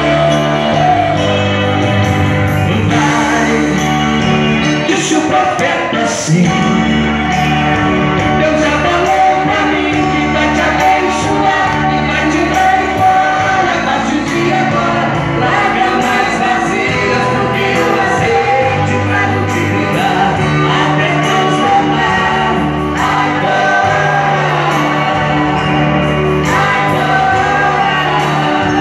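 A man singing a Pentecostal worship song into a microphone while playing an electronic keyboard, with sustained chords and a steady bass line under the voice, all amplified through the church's speakers.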